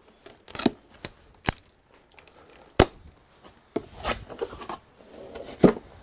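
A small blade slitting the tape seals on a cardboard box, with several sharp snaps, then the cardboard flaps scraping and rustling as the box is opened, with one loud scrape near the end.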